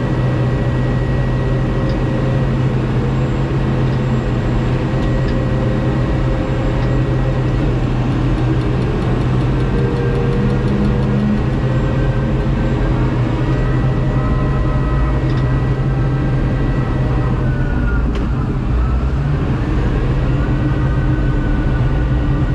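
Heavy machine engine running steadily under load, with a faint higher whine that dips in pitch and rises back near the end.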